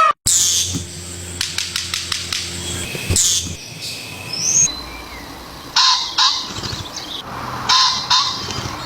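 A bird calling: a run of quick sharp clicks, a short rising whistle, then two loud harsh calls a couple of seconds apart.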